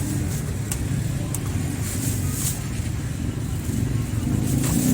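A motor vehicle's engine running steadily at a low, even rumble, with a few sharp clicks over it.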